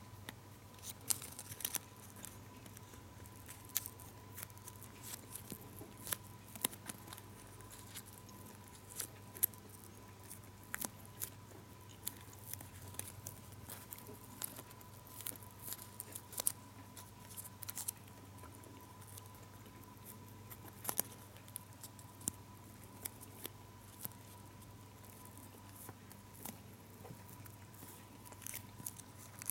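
Foil gum wrapper being folded and creased between fingers: irregular crinkles and sharp little ticks, over a faint steady hum.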